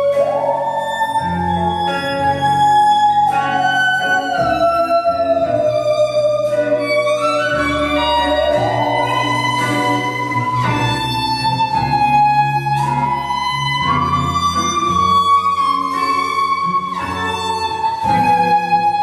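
Jazz band music: a lead melody line with slow upward slides between held notes, over a steady bass line.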